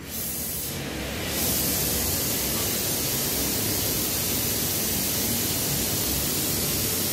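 Oxy-fuel torch flame hissing steadily, getting louder about a second in and then holding even.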